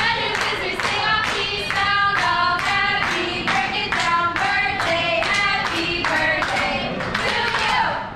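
A group singing a birthday song together while clapping a steady beat.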